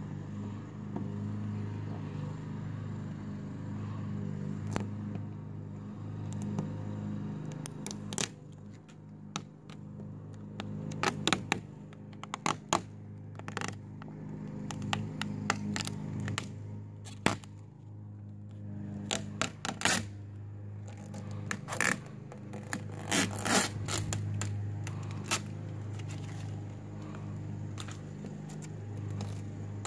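Vinyl wrap film being peeled off a car door, crackling and tearing in short spells that start several seconds in, over a steady low hum.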